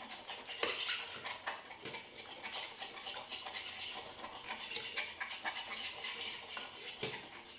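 Raw beaten eggs and milk being whisked with a utensil in a non-stick frying pan: fast, irregular scraping and clicking of the utensil against the pan.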